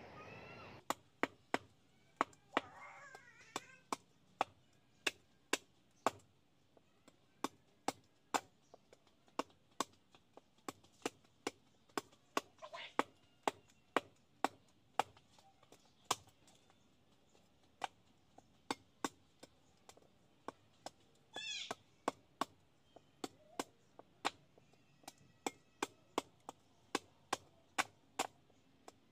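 A cleaver chopping into a sprouted palmyra palm seed on the ground, hacking it open. The sharp chops come steadily at about two a second, starting about a second in.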